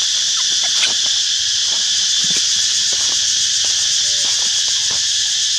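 A steady, high-pitched insect chorus drones without a break. Scattered soft clicks and a few brief faint squeaks sound over it.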